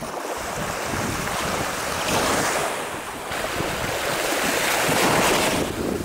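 Small sea waves washing in over the shallows at a sandy shore, swelling twice, with wind buffeting the microphone.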